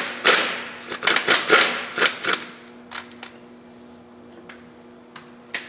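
Pneumatic impact wrench hammering in several short bursts, loosening the coolant drain plug in the side of a GM 3900 V6 block. The bursts fill the first two and a half seconds, and a few light clicks follow.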